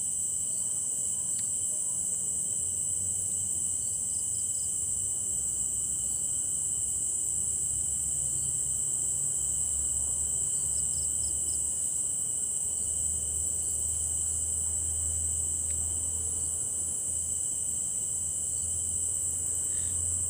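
Night insects, crickets, chirring in a continuous high-pitched drone, with a second, lower steady tone beneath it. Twice, a short run of about four quick chirps sounds over it.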